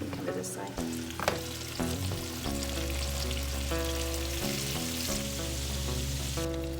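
Egg-and-flour-battered rabbit nuggets sizzling as they fry in a pan, a steady sizzle that grows louder a couple of seconds in. Background music plays along with it, and there is a single knock about a second in.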